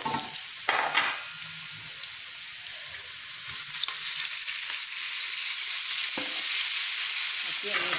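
Hot oil sizzling in a pan of frying onion, garlic and curry leaves as it is stirred, with a few light knocks; the sizzle grows louder about halfway through.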